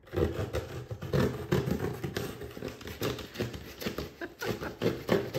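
Cardboard shipping box being cut and pried open by hand: irregular scraping, crackling and knocking of cardboard.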